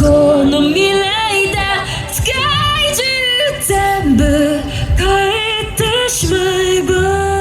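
Music with a woman singing held, wavering notes.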